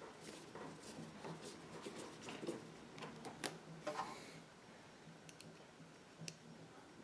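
Faint scattered clicks and light knocks from a screw being driven by hand into a plastic refrigerator door handle, with a few sharper clicks around the middle and near the end.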